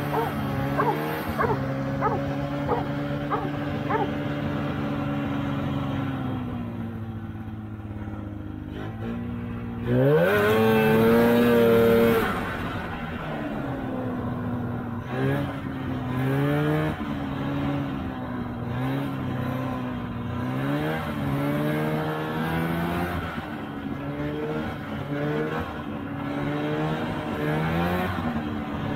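Polaris TX340 snowmobile's two-stroke engine running under way, its pitch rising and falling with the throttle, with a loud hard acceleration about ten seconds in that holds for a couple of seconds. The engine is freshly rebuilt, with new rings and a freshly honed cylinder.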